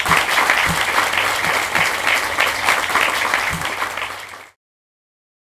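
Live audience applauding, cut off suddenly about four and a half seconds in.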